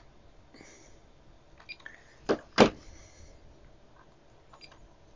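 Two sharp plastic knocks about a third of a second apart, about two and a half seconds in, among a few lighter clicks, from handling a handheld multimeter and its detachable display.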